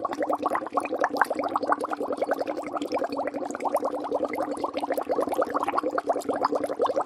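Water bubbling in a ceramic bowl, recorded close up: a rapid, continuous stream of small bubble pops, many each second, going on evenly.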